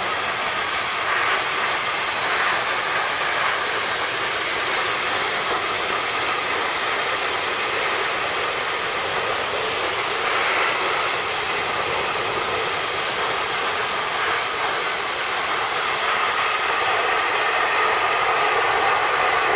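A long freight train of open wagons and tank wagons rolling past on the rails, a steady, even rolling noise.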